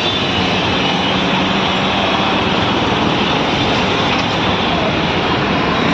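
Loud, steady vehicle noise: a continuous rush without distinct events, with a faint low hum in the first few seconds.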